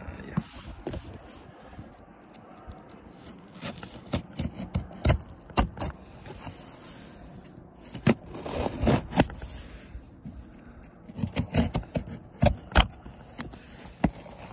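Kitchen knife slitting packing tape along the seams of a cardboard box, in irregular bursts of scraping strokes with sharp clicks as the box is handled.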